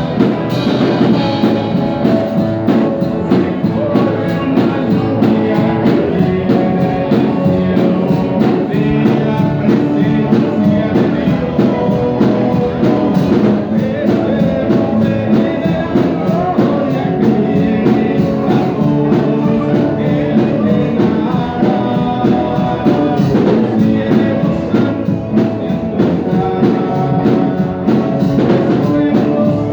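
Christian song with guitar, drums and a steady beat; any singing is not picked up as words.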